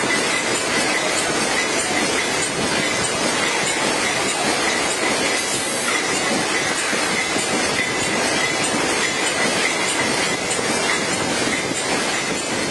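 Steady mechanical clatter and hiss of running packaging machinery, with a faint steady whine.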